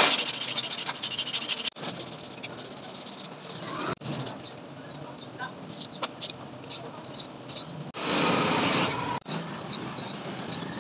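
Steel knife blade forged from an old file being hand-finished: rapid scratching strokes of abrasive paper over the blade at the start, then the blade rubbed on a whetstone, with one louder rasp about eight seconds in. The sound comes in short segments broken by abrupt cuts.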